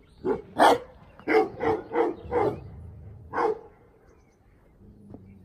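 Dog barking in a series of about seven barks over the first three and a half seconds, then falling quiet.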